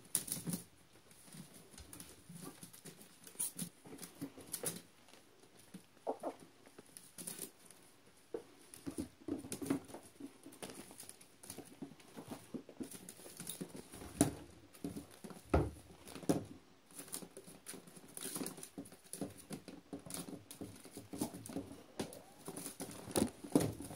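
Kittens scrambling in and on a wicker basket: irregular light scratching, clicking and creaking of claws on the wicker and paws on the tile floor, with a few louder knocks as the basket is shoved and tipped over.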